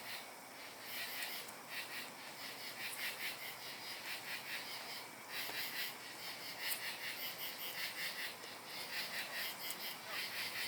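A loud night chorus of small calling creatures, high-pitched rapid pulsing trills repeating in overlapping bursts.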